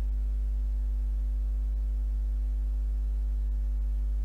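A steady low electrical hum with fainter evenly spaced overtones above it. No frying sizzle is heard.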